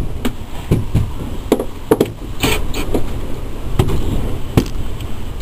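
A hammer striking the motorhome's metal front framing, about a dozen irregular blows over a few seconds.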